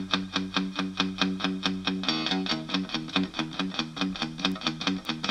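Background music: a distorted electric guitar playing a fast, even strummed riff, with the chord changing about two seconds in.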